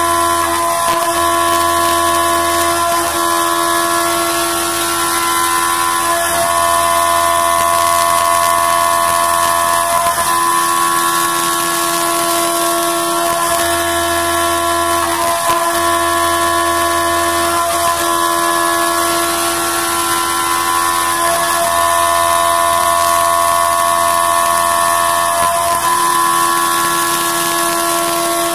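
CNC milling machine cutting an aluminium housing under flood coolant: a steady spindle and cutter whine made of several held tones, over a hiss. The mix of tones shifts every few seconds as the cut goes on.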